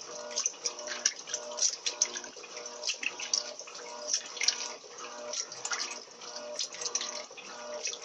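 Top-loading LT13B Turbo washing machine agitating its load during a rinse at the medium water level: water sloshing and splashing around the agitator as the clothes churn, with the motor's hum coming and going in short repeated strokes.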